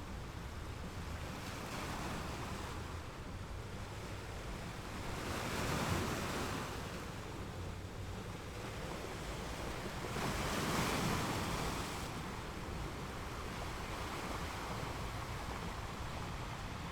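Sea waves washing, with a steady rush of water and wind and two louder surges, about six and eleven seconds in.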